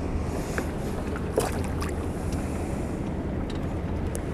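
Steady wind rumble on the microphone and water lapping against a small boat's hull, with a few light clicks and taps, the sharpest about a second and a half in.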